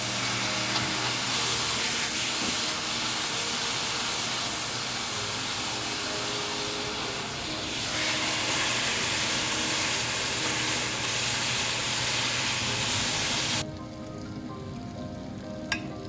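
Sliced meat and green peppers sizzling in a frying pan just after seasoning is poured in, over background music. The sizzle cuts off abruptly near the end, and a single sharp click follows.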